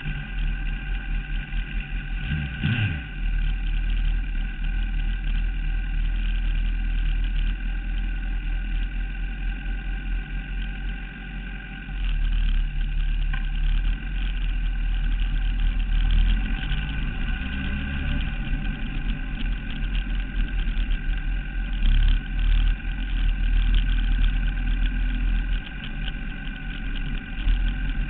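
Sport motorcycle engine running at low, fairly steady revs while the bike rolls slowly, heard through the onboard camera with a strong low rumble.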